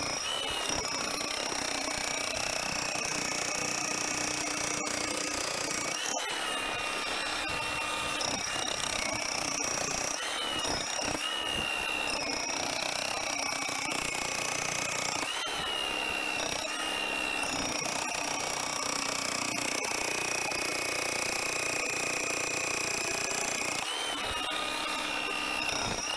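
A power tool's motor running continuously with a high whine that shifts slightly in pitch every several seconds.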